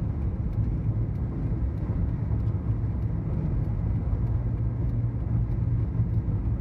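Car driving, a steady low engine and road rumble heard from inside the cabin.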